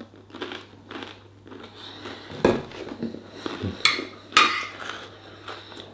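A fork clinking and scraping on a dinner plate while a mouthful of garlic bread is chewed, with a sharp clink about two and a half seconds in.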